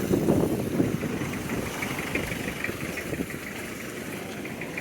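A motor vehicle's engine running at low revs, with a rough rumble that is loudest in the first second.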